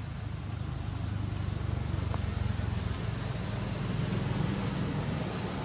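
A motor vehicle engine running, with a steady low hum that grows louder over the first couple of seconds and then holds.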